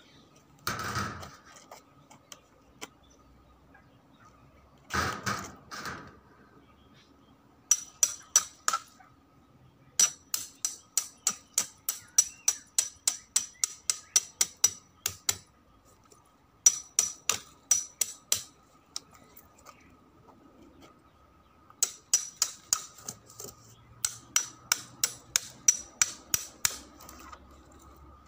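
A hammer tapping the back of a steel knife blade to drive it into a papaya trunk, in quick runs of sharp metallic clinks, about four a second, with short pauses between runs. Two short scraping noises come before the first run.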